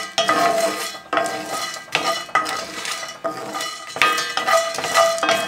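Wooden spoon stirring and knocking whole spices around a cast-iron skillet as they dry-roast, the hard spices scraping and rattling on the iron. Sharp knocks come about once a second over a steady ringing tone.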